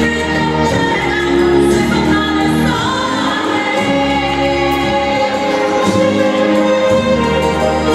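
Ballroom dance music with singing, playing steadily for a standard dance heat.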